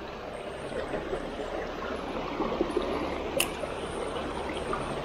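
A small spring-fed creek trickling and babbling over rocks, steady throughout. A single sharp click about three and a half seconds in.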